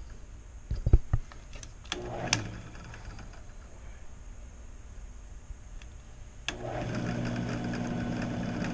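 Two sharp handling knocks about a second in, a brief spin-up of a drill press near two seconds, then from about six and a half seconds the drill press motor running steadily, spinning the key machine motor's shaft in its chuck. The shaft is wobbling as it turns, which the repairer takes for a bent shaft or one not centred in the chuck.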